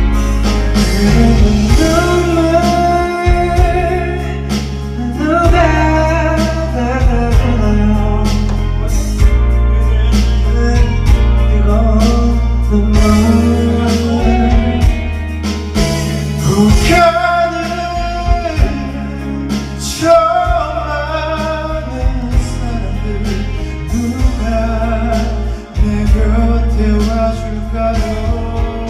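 A song playing: a steady bass and drum beat under a wavering melodic lead line.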